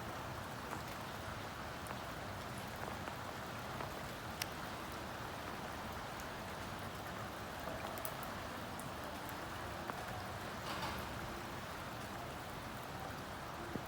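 Steady rain falling, with a few faint drop ticks on nearby surfaces.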